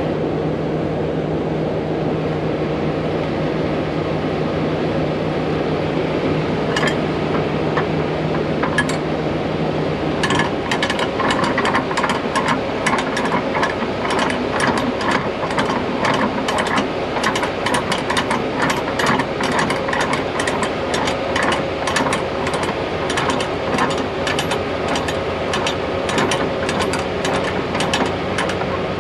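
Semi truck engine running with a steady hum. From about ten seconds in, a fast, continuous metallic rattle joins it as the flatbed rig moves.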